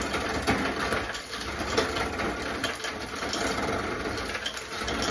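Refrigerator crushed-ice dispenser running: a motor grinding, with a dense clatter of small clicks as crushed ice comes out.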